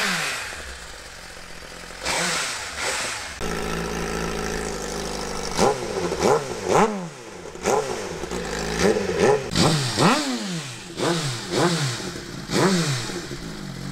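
2017 Suzuki GSX-R1000's inline-four engine idling and being blipped repeatedly, each rev rising and dropping back quickly. It is heard first through the stock exhaust, then with the exhaust removed, and then through a Yoshimura Alpha T slip-on exhaust.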